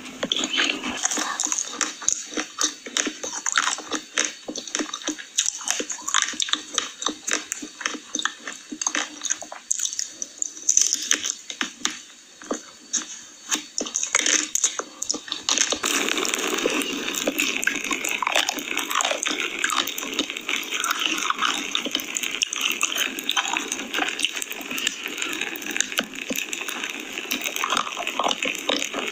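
Close-miked eating sounds of someone eating ice cream: a dense run of wet mouth clicks, smacks and chewing, growing busier about halfway through.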